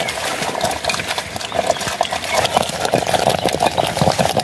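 A wooden churning stick twirled between the palms in a brass pot of nettle soup, its tip knocking and rattling against the pot in quick, uneven clicks.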